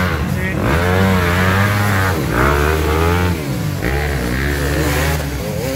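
Several motocross bikes revving hard and unevenly, engine pitch surging up and down, labouring with rear wheels spinning in deep mud. The deepest engine note drops away briefly twice.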